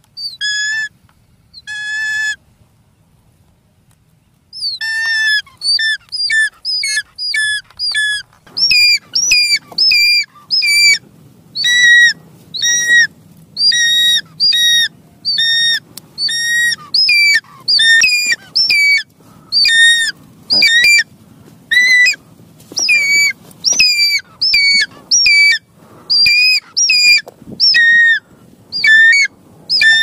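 Changeable hawk-eagle (light morph) calling over its kill: a long series of loud, shrill, high-pitched notes, each bending up and then down. Two notes come near the start; after a short pause it calls steadily, about one and a half notes a second, with a low rumble of handling underneath.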